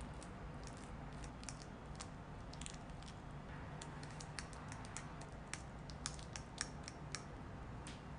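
Metal fork mashing banana in a glass bowl: irregular clicks and taps of the tines against the glass, sharper and more frequent in the second half, over a faint low hum.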